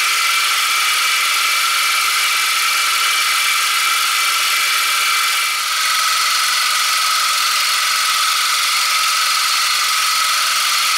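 Milling machine with a large fly cutter taking a cut across a lathe saddle's flat surface with coolant: a steady, high-pitched cutting hiss with a whine, its tone changing slightly about halfway through.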